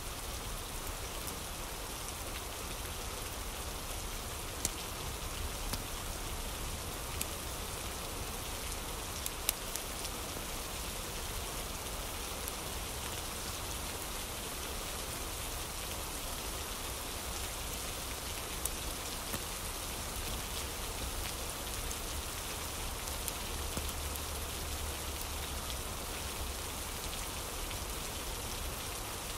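Steady rain falling, an ambient rain recording, with a few scattered sharp clicks.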